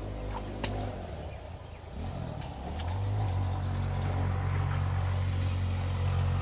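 A small engine running with a steady low hum. About two seconds in it rises in pitch and gets louder, as if revving up, then holds steady. A single sharp click comes less than a second in.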